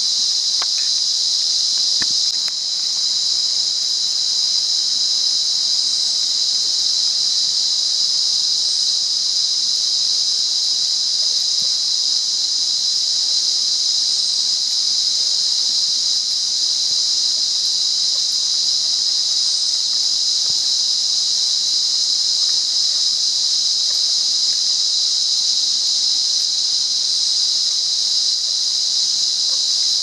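Cicada buzzing: a loud, continuous high-pitched drone that holds steady without a break.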